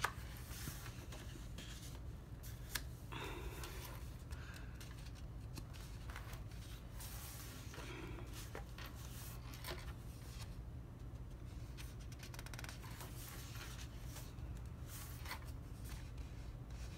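Paper rustling as the large pages of a softcover coloring book are turned and pressed flat by hand: scattered soft flicks and brushing sounds over a low steady hum.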